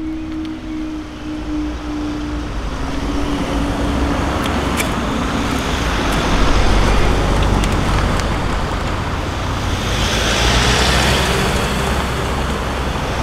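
A vehicle passing close by: a rushing noise that builds over the first few seconds and stays loud, with a humming tone that drops in pitch early on.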